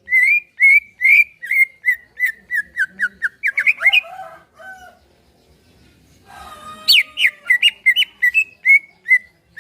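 Green leafbird (cucak ijo) singing in two phrases of quick, repeated whistled notes. The first phrase speeds up and falls slightly in pitch over about four seconds, then ends in a few lower notes. After a pause, the second starts higher about seven seconds in and settles down again.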